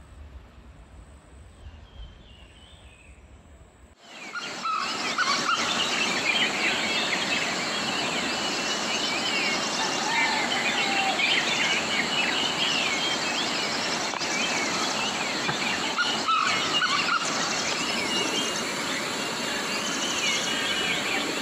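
Dense chorus of many birds chirping over a steady high hiss, starting suddenly about four seconds in; before that only a faint low rumble.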